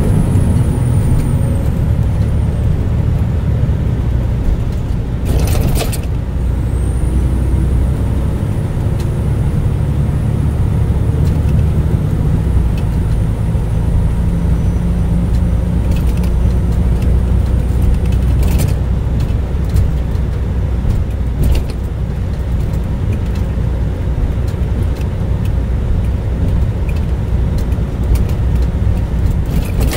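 Car on the move: a steady low engine and road rumble, with a couple of brief knocks, one about five seconds in and another past the middle.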